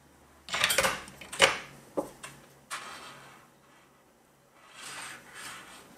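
Sharp knocks and clatters of tools being handled on a desk, among them a soldering iron being set back into its metal holder, several in the first three seconds. Softer rustling follows near the end.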